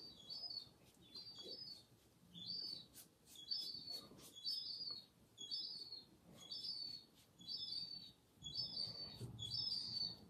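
A small bird chirping over and over, a short high chirp about once a second.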